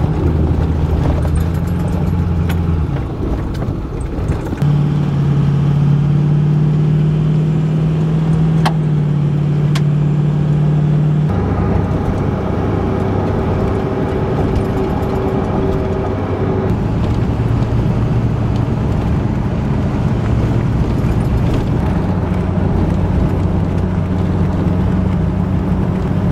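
Vehicle engine and road noise heard from inside the cab while driving: a steady low drone that jumps abruptly to a new pitch several times.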